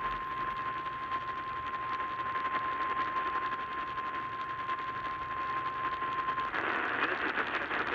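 A weather radio's single-pitch EAS warning alarm tone, a steady beep at about 1 kHz over radio static, which heralds the tsunami drill alert. The tone cuts off about six and a half seconds in, leaving the hiss of the radio.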